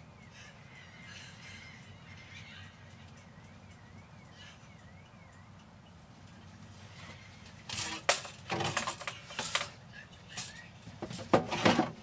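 Quiet room tone with a faint warbling whistle through the first half. From about eight seconds in comes a run of sharp knocks and clatter, loudest near the end, from a tape measure and tools being handled.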